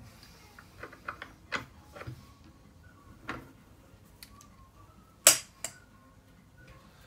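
Irregular metal clinks and knocks as a workpiece is handled in a machine vise on a mini mill, with one sharp, loud clack a little after five seconds.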